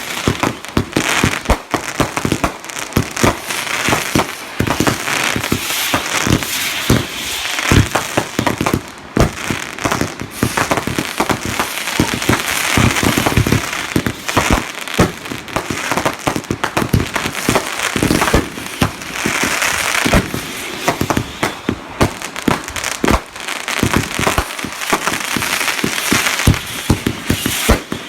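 Consumer fireworks going off nonstop: a rapid, irregular string of bangs and booms over continuous dense crackling.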